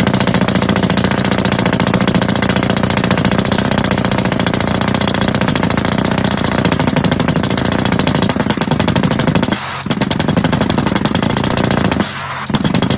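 Drill rig with a Yonda YDR30A hydraulic rotary head, percussion drilling with rapid, continuous hammer blows, broken by two short dips about ten and twelve seconds in.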